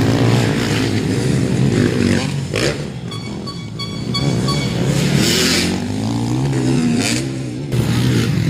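Motocross bike engines revving hard as the bikes pass, the pitch repeatedly rising and falling with the throttle.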